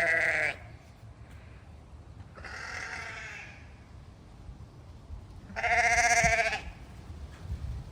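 Sheep bleating: a call trailing off right at the start, a fainter bleat around three seconds in, and a loud, wavering bleat about six seconds in.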